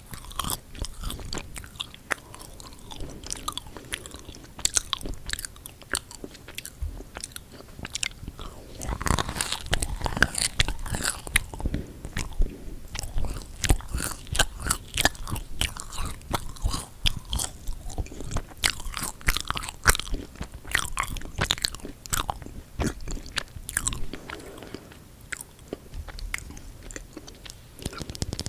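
Close-miked eating of chocolate-coated marshmallow cookies: biting and chewing, with many quick crackles and sticky clicks. It is busiest through the middle.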